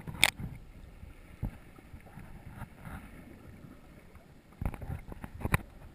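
Sea water sloshing and splashing around a GoPro in its waterproof housing held at the surface, with sudden splashes near the start, about a second and a half in, and twice near the end.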